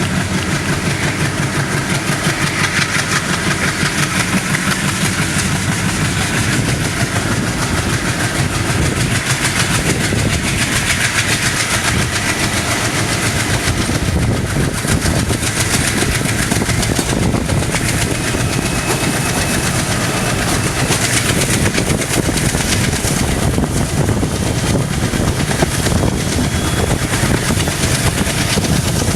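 ALCO diesel-electric locomotive's 251-series engine running steadily and loud as it hauls a passenger train, with wheels clattering over the rail joints.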